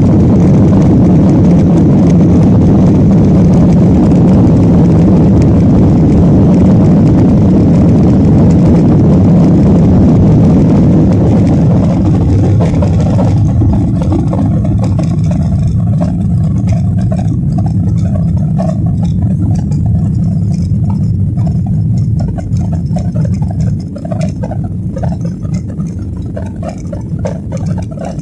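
Jet airliner engine and airflow noise heard from inside the cabin: a loud steady rumble and hiss that drops away about halfway through, then a lower rumble with light rattles that falls again near the end.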